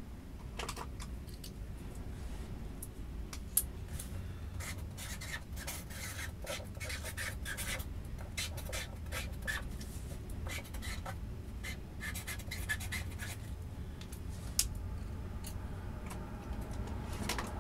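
Autorack freight train rolling slowly past with a steady low rumble, overlaid by irregular scratchy clicks and rubbing, densest in the middle, and two sharp ticks.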